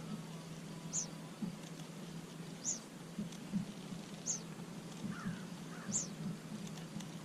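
A bird repeating a short, high, falling call about every second and a half, five times, with a faint steady low hum underneath.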